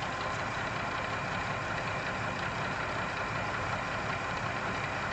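Massey Ferguson 3095 tractor's diesel engine running steadily, cutting in suddenly at the start with an even rumble and a fine steady whine over it.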